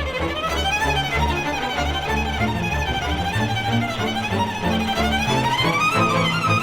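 Background music: a violin-led string piece, a wavering melody over steady low bass notes.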